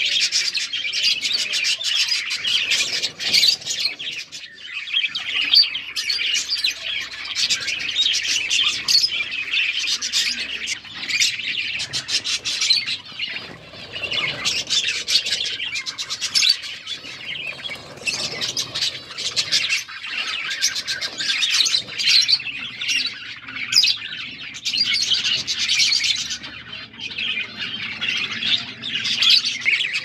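A colony of budgerigars chirping and chattering all at once, many birds' calls overlapping in a dense, unbroken high chatter with short sharp clicks scattered through it.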